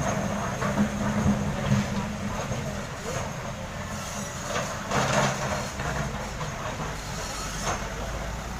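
Diesel engines of heavy construction machinery running steadily, with clanks and rattles of material or steel parts about a second in, around the middle and shortly before the end.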